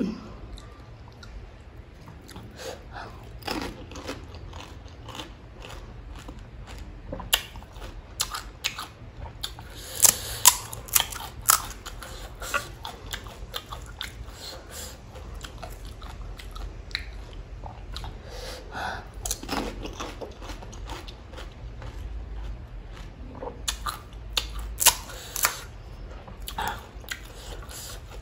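Close-miked eating of pani puri: crisp, hollow puri shells crunching between the teeth, with wet chewing in between. The sharpest crunches come in clusters, about a third of the way in and again near the end.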